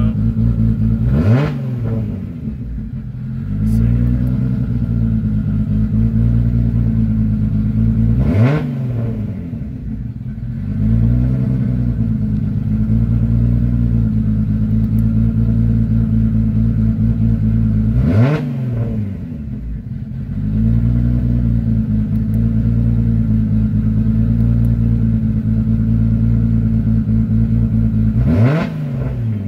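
Nissan Skyline GT-R R32's straight-piped RB26 twin-turbo straight-six idling steadily, blipped four times, roughly every eight to ten seconds. Each rev rises sharply and then falls back to idle over a couple of seconds.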